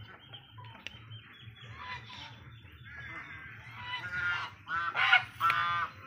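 Domestic ducks quacking among a feeding flock of hens, with soft calls at first and three loud, nasal calls in the second half.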